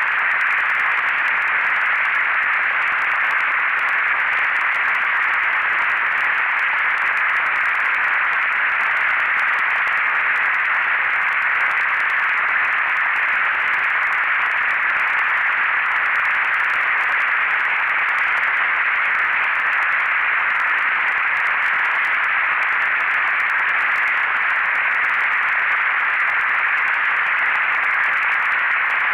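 Synthesized noise generated in SuperCollider: a steady, unchanging hiss like filtered static, strongest in the upper-middle range, with no beat or pitched tones.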